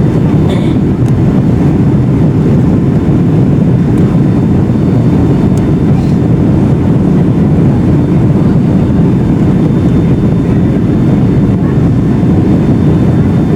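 Boeing 757-351 cabin noise on approach: a steady, loud rumble of the jet engines and airflow heard from inside the passenger cabin.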